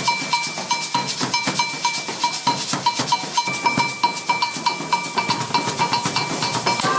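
Percussion group playing a fast, steady rhythm: large drums struck with felt-tipped mallets, together with hand percussion and a ringing metallic tone on the beats.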